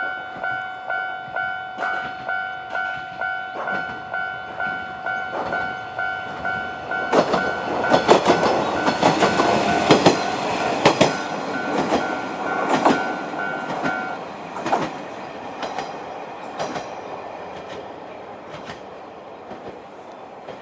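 Japanese level-crossing alarm ringing its electronic two-tone bell about twice a second while an Isumi 350-type diesel railcar passes, its wheels clacking over the rail joints from about seven seconds in. The bell stops about two-thirds of the way through, and the railcar's sound fades away.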